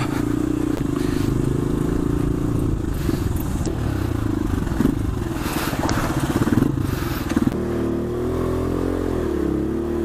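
Single-cylinder 150cc motorcycle engine running steadily under load, with a few knocks and scrapes. About two and a half seconds before the end, the engine note drops and wavers up and down as the revs change.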